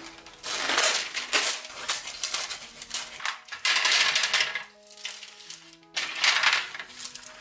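Small baking stones rattling against each other and the metal tray in several bursts as they are poured and spread by hand onto a parchment-lined baking tray, over background music.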